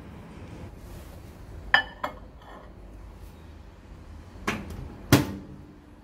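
Ceramic ramekins clinking as they are set down, a few light ringing clicks, then a microwave door shut with a sharp knock and latch click near the end, the loudest sound.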